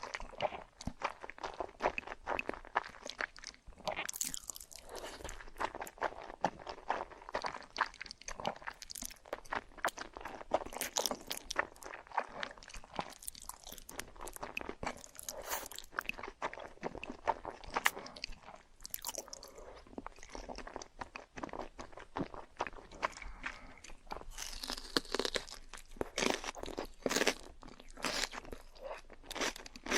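A person chewing and biting into crunchy food close to the microphone, with a dense, irregular run of crisp crunches.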